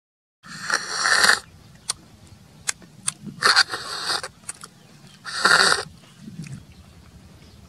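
Cooked snails being sucked from their shells by mouth: three loud hissing slurps, with short sharp clicks between them.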